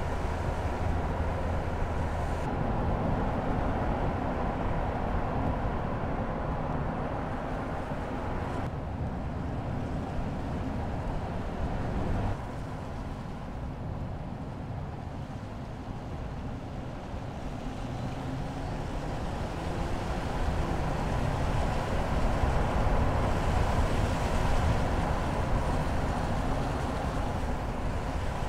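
Mercedes-Benz GLE SUV driving: a steady mix of engine and tyre-on-road noise. Its character and loudness jump at each change of shot, and it grows louder in the last third.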